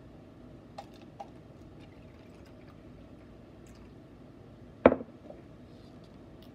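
Water being poured from a glass measuring cup into a plastic cup, a faint steady trickle. Just under five seconds in, a single sharp knock as the glass measuring cup is set down on the table.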